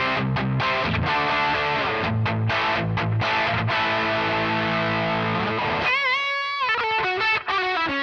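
Distorted electric guitar played through a standard instrument cable: palm-muted chugging riffs and a held chord, then a bent note with vibrato about six seconds in and a quick run of lead notes near the end.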